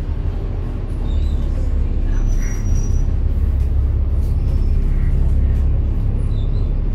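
Inside a moving bus: a low engine and road rumble that grows louder about a second in and then holds steady, with a brief faint high whine near the middle.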